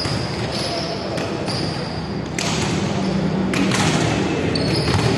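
Volleyball rally on a wooden indoor court: sneakers squeaking in short high chirps and the ball being struck several times, each hit a sharp smack that echoes in the large hall.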